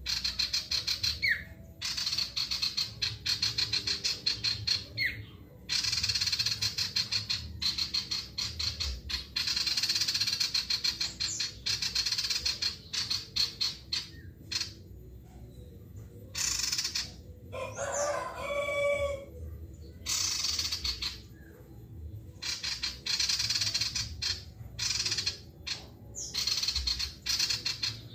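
Male sirtu songbird in full song: rapid, high, chattering trill phrases of one to two seconds each, repeated with short pauses, with a few brief downward whistles near the start. About two-thirds of the way through, a lower, harsher call of about a second and a half breaks in.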